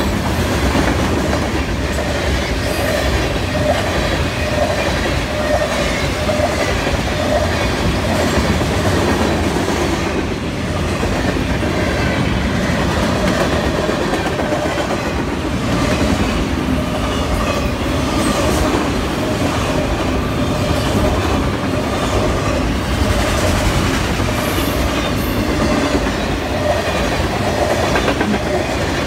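Freight cars of a long mixed freight train rolling steadily past: a continuous rumble and clatter of steel wheels on the rails.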